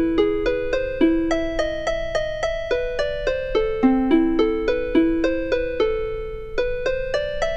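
Instrumental background music: a light melody of ringing, quickly decaying notes, about four a second, over a faint low hum.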